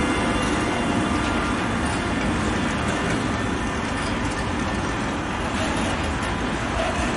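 Freight train of covered hopper wagons rolling past at steady speed: a steady rumble of steel wheels on the rails.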